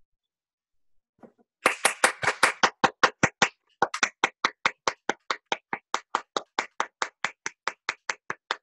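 One person clapping in applause, starting about a second and a half in and keeping up a steady beat of about four or five claps a second.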